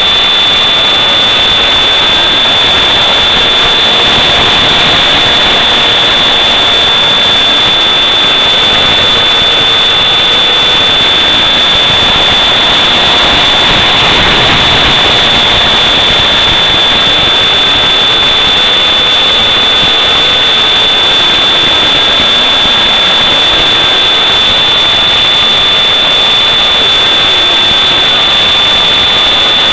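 Onboard audio of an FPV model aircraft in flight: a loud, steady hiss with a constant high-pitched whine, and a fainter motor tone that slowly rises and falls.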